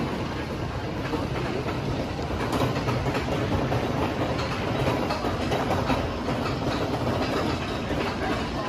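Mine train roller coaster running along its steel track overhead: a steady rumble of the train's wheels on the rails.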